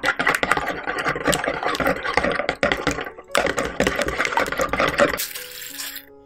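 Wire whisk beating egg yolks and sugar in a plastic mixing bowl: a fast, even scraping and clatter of the wires against the bowl. It pauses briefly about three seconds in and stops about five seconds in.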